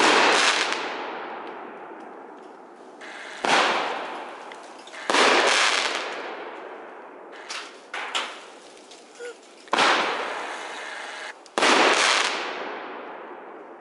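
Aerial fireworks bursting overhead: five loud bangs, each trailing off in a long fading rumble and crackle, with a few smaller pops in between about halfway through.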